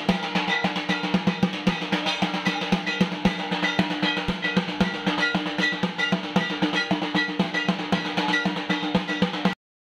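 Fast, steady dhak drumming with a short high ringing metal note keeping time about twice a second, as played for the Bijoya Dashami dhunuchi dance. It cuts off abruptly just before the end.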